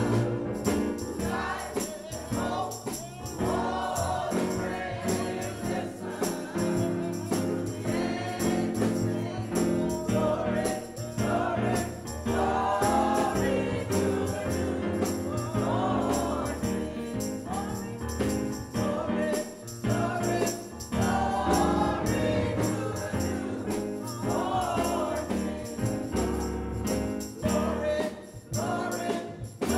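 A church senior choir singing a gospel song, with instrumental accompaniment.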